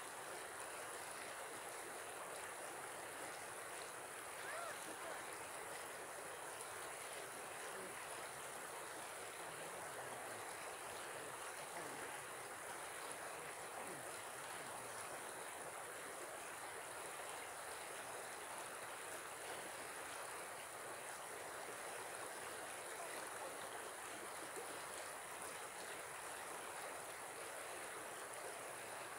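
Shallow river flowing fast over a stony bed, a steady rushing of water.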